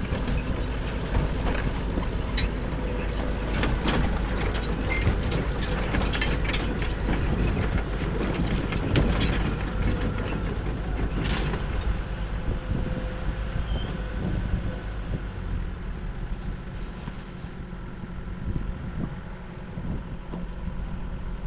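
Bulldozer working: a steady diesel engine rumble under a dense run of metallic clanks and rattles from its steel crawler tracks. The clanking is busiest in the first half and thins out later.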